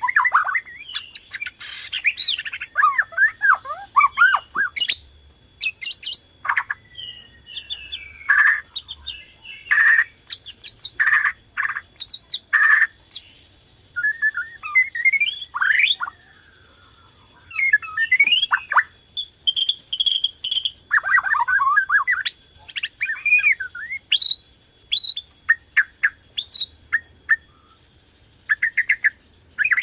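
Borneo-type white-rumped shama (murai batu) singing a lively, varied song in bursts of sweeping whistles, rapid rattling trills and harsh squawky notes, with short pauses between phrases. This is the full, continuous song used as a lure to set other shamas singing.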